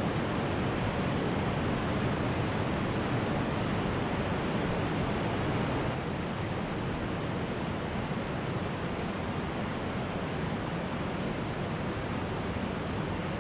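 Stream water rushing over rocks inside a concrete culvert, a steady wash of noise that drops slightly about six seconds in.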